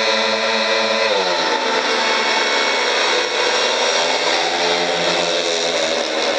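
Speedway motorcycles' 500 cc single-cylinder methanol engines racing as a pack. Their pitch falls about a second in and climbs again later.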